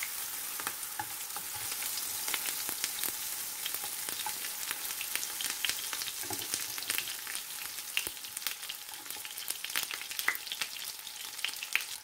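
Egg-stuffed banana peppers shallow-frying in oil in a nonstick pan: a steady sizzle with constant crackling pops.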